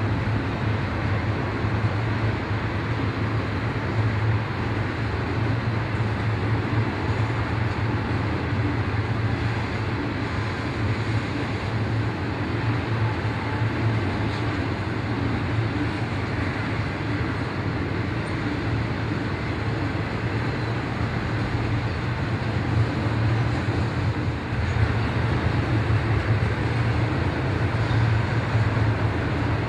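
Double-stack container freight train rolling past: a steady rumble of wheels and cars over a strong low hum.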